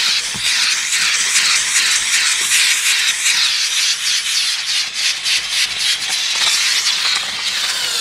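Steam cleaner hissing as its nozzle jets steam into a cloth car seat and is worked back and forth over the fabric, the hiss pulsing unevenly with the strokes. It weakens a little near the end.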